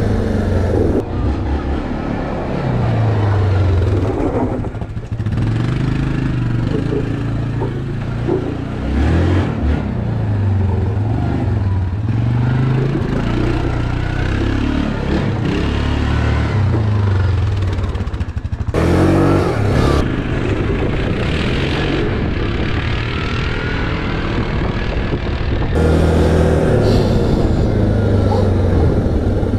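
Yamaha Grizzly 700 ATV's single-cylinder engine running under way, its pitch rising and falling again and again as the throttle is opened and eased off.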